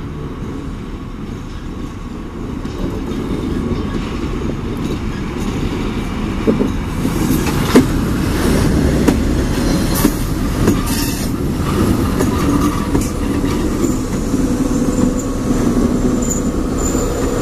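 Slow diesel work train passing close, led by a rail snowplow unit and SNCF BB 66000-class diesel-electric locomotives: a low diesel rumble that grows louder as it approaches, wheels clicking over rail joints. Near the end a high-pitched wheel squeal sets in as the wagons take the curve.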